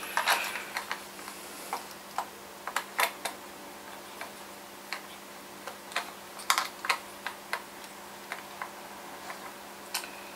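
Scattered small clicks and taps of fingers handling a plastic OO gauge model railway vehicle, pressing pinpoint-axle wheelsets into its axle mounts, irregular and a few to the second at most.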